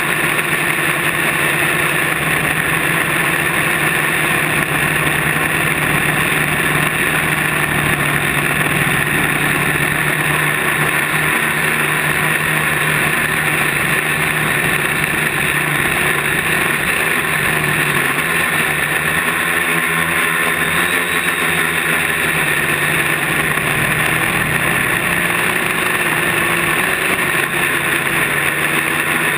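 Quadcopter's electric motors and propellers running in flight, a steady whine picked up close by a camera mounted on the craft.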